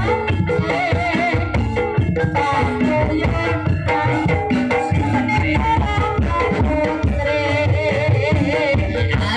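Live campursari-style ebeg accompaniment: Javanese gamelan with hand drums keeping a steady beat, and a singer's wavering voice over the melody.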